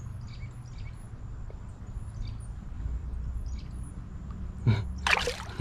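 Creek water sloshing around a hand holding a fish under the surface for release, with a short, loud splash about five seconds in as the fish is let go. Faint high chirps repeat in the background.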